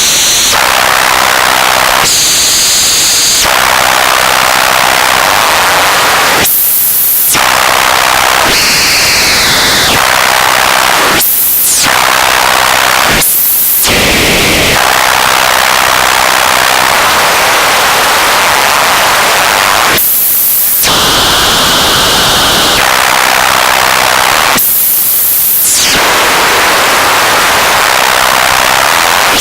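Loud, steady radio static, hissing and crackling, broken every few seconds by brief dropouts and short high whistling tones, some gliding down in pitch: frequency spikes and interference.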